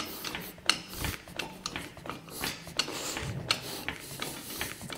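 Red hydraulic trolley jack pumped by its long handle, giving scattered clicks and rubbing scrapes from the pump mechanism as it raises a heavy car.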